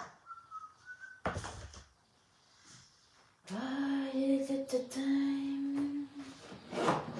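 A short clatter about a second in, then a voice humming one long, steady note for about three seconds, and a brief rustle near the end.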